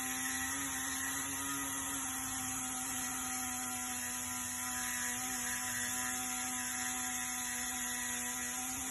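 Steady machine hum at one constant pitch, with a hiss above it and no change in speed or load, from workshop equipment running while an exhaust pipe is welded.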